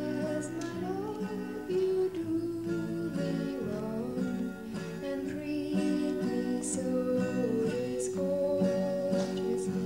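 Background music with strummed acoustic guitar and a gliding melody line over it.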